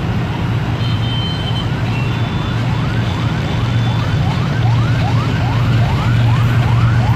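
Approaching diesel locomotive engine, a steady low drone that grows slightly louder as it nears. From about two seconds in, a quick siren-like yelp joins it: short rising wails repeating about two and a half times a second.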